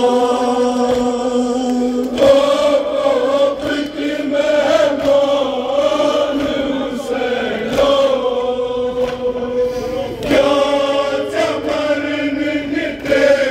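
A crowd of men chanting a Kashmiri noha, a Shia mourning lament, in unison, with a lead reciter on a microphone. Sharp slaps of matam chest-beating come every second or so.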